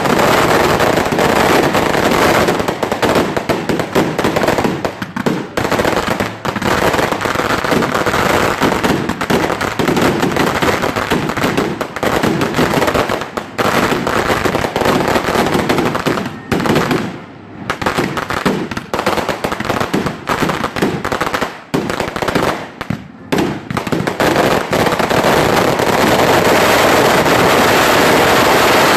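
Fireworks barrage going off: a dense, rapid string of loud bangs and crackles, with two brief lulls about seventeen and twenty-three seconds in.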